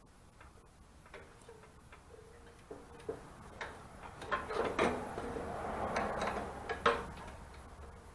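Scattered light clicks and knocks of metal parts and tools being handled while a fuel tank is mounted back onto the log splitter, with a stretch of rustling handling noise about five to seven seconds in.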